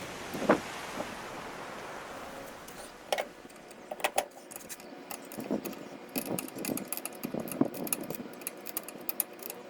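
A hiss that fades over the first few seconds, then scattered light clicks and knocks, irregular and short.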